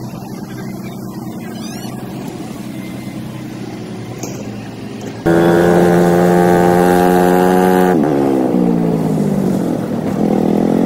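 A boat's motor running steadily under way over water. About five seconds in it cuts to the louder engine of a motorized tricycle on the move: a steady note that drops in pitch, then rises and falls as it revs.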